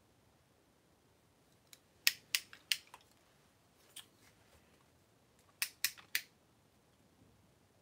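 Hard plastic parts of a Power Rangers Dino Fury Ptera Freeze Zord toy clicking as they are twisted, ratcheted and unclipped during transformation: a quick run of about five sharp clicks about two seconds in, a single click, then three more in quick succession near the six-second mark.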